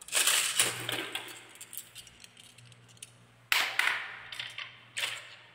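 Balls clattering down a wooden marble run, rolling and bouncing over the bumped wooden ramp and spiral track as a rapid rattle of clicks. It comes in three batches, each starting suddenly and fading: at the start, about three and a half seconds in, and about five seconds in.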